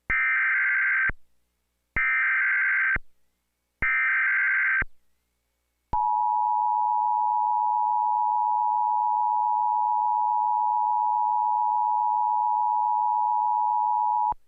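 Emergency Alert System tornado warning header: three separate one-second bursts of SAME data tones, then the steady two-tone EAS attention signal for about eight seconds, cutting off sharply just before the spoken message.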